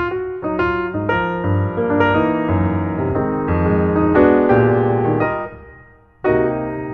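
Background piano music: a melody of struck notes, fading briefly about six seconds in before starting again.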